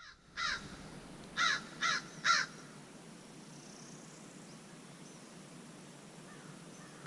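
A crow or raven cawing four times in quick succession, harsh descending calls, then faint background hiss.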